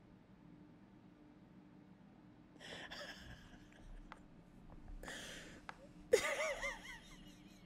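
A man's breathless, wheezing laughter: two breathy gasps about three and five seconds in, then a sudden louder burst of high, wavering laughter about six seconds in.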